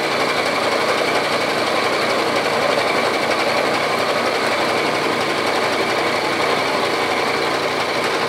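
Bridgeport milling machine cutting steel with a half-inch end mill at fifty-thousandths depth of cut: a steady cutting noise over the spindle's hum as the slowed power feed pulls the table through the cut, still with enough torque to make it.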